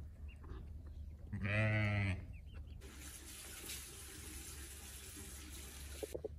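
A farm animal calls once, a single loud drawn-out call of under a second. Then a tap runs steadily into a pedestal washbasin as a face is washed, cutting off just before the end.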